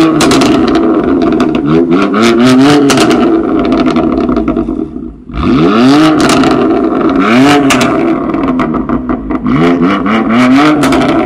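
2018 BMW M4 Competition's twin-turbo inline-six revved again and again at a standstill through a custom titanium exhaust, heard from behind the quad tailpipes: a string of rising revs, with a brief lull about five seconds in.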